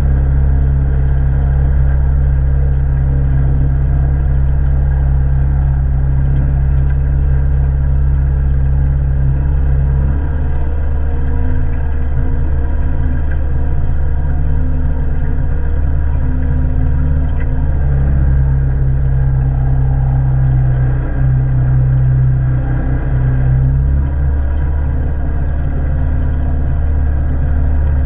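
Small outboard motor on an aluminium boat running steadily under load while towing a floatplane. Its note shifts about ten seconds in and again near the end.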